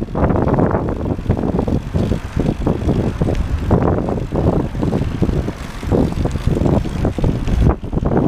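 Wind buffeting the microphone of a camera riding on a moving bicycle: a loud, gusting rumble that rises and falls irregularly.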